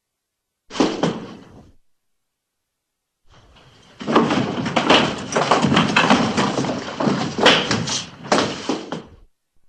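Recorded bodyfall sound effects: one body hitting the floor with a heavy thud a little under a second in, then a few seconds later a body tumbling, with many rapid thuds and scuffs for about five seconds.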